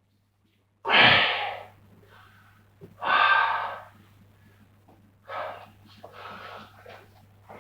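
A squatter's forceful breaths under a heavy barbell: two loud puffs about two seconds apart, then two fainter ones.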